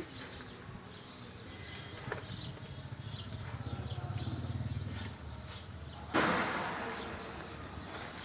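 A machine's engine running with a low, even thudding that swells in the middle, then a sudden rushing noise about six seconds in that fades over a couple of seconds; birds chirp throughout.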